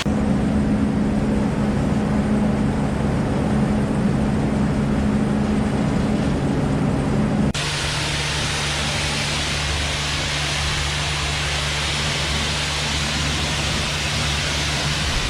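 Combine harvester engine and machinery running with a steady drone. It cuts abruptly about halfway through to a lower-pitched, otherwise similar drone.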